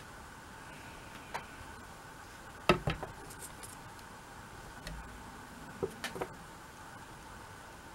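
A few short clicks and taps of craft tools and an acrylic block being handled and set down on a desk work mat, the loudest about three seconds in, over a faint steady hum.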